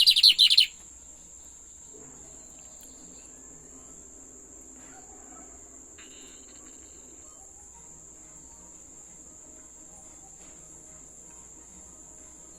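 A lined seedeater (bigodinho) gives a brief, loud burst of fast, high song right at the start. After that a steady, high-pitched insect-like trill runs on quietly.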